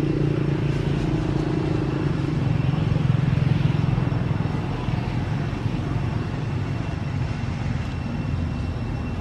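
A motor vehicle's engine running with a steady hum that grows louder about three seconds in and then fades, as if passing by.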